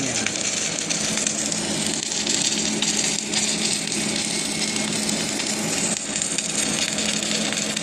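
Automatic welding machine test-running after repair: a steady arc hiss and crackle over a constant low electrical hum.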